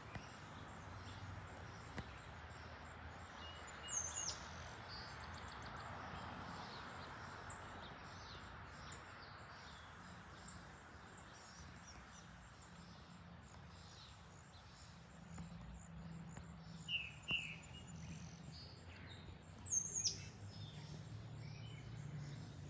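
Faint, even roar of a Boeing 777 freighter passing high overhead, swelling over the first few seconds and fading away. Birds chirp briefly a few times, once near the start and twice in the later part; the chirps are the loudest sounds.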